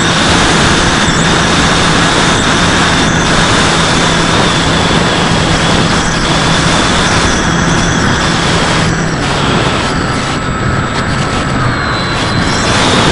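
Electric motor and propeller of a Bixler foam RC plane running steadily in flight, a high whine under heavy wind rush on the onboard camera's microphone. The whine steps slightly down in pitch near the end.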